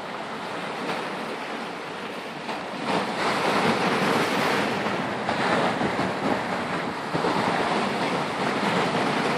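Sea waves breaking and washing over a rocky shore, a steady rush of surf that grows louder about three seconds in and then swells and eases as the waves come in.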